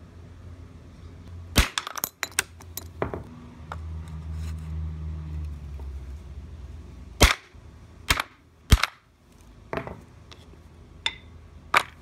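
Sledgehammer striking the steel punch of a disc cutter, driving it through a quarter to cut out the coin's centre. Sharp metallic blows come at irregular intervals, a quick cluster about two seconds in and then single strikes through the second half.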